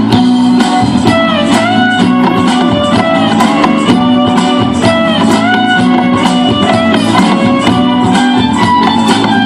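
Guitar-led music with a steady beat; the lead line slides up and down between notes.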